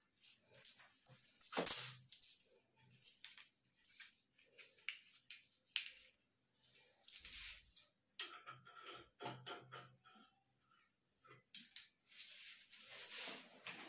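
Small brass fittings and plastic parts of a hand-shower hose handled together: scattered clicks and clinks, the sharpest about a second and a half in, with a steadier rustling near the end.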